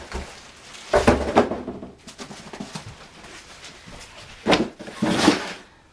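Box contents and packing being handled during unpacking: a knock and clatter about a second in, then rustling and scraping near the end.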